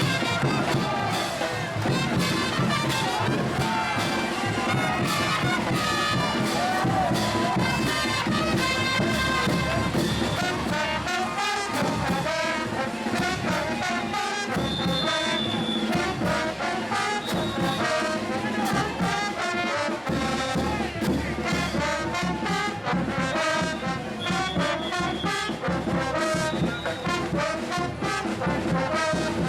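Brass band playing traditional Bolivian parade music, with trumpets and trombones over a steady drum beat.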